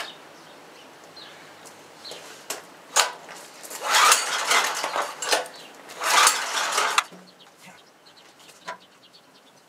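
Metal clattering and rattling, like tools or engine parts being handled and knocked together: a couple of sharp clinks, then two bursts of dense jangling about a second and a half long each, ending about seven seconds in.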